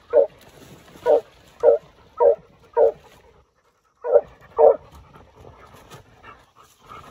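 Hunting hound barking at a hole in a stump where its quarry has gone to ground: seven short barks about half a second to a second apart. The sound cuts out for about half a second after the fifth bark, and the barking gives way to quieter sound near the end.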